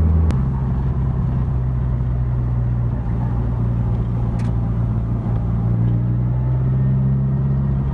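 Nissan Silvia S15's engine droning steadily at a cruise, heard from inside the cabin with road noise. Its pitch shifts once, about a third of a second in.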